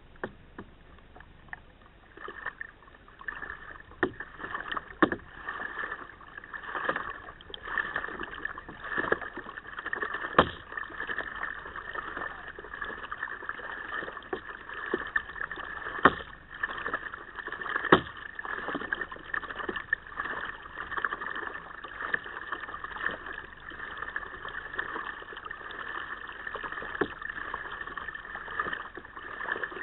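Kayak paddling: water splashing and dripping off the paddle blades in a loose stroke rhythm, with several sharp knocks.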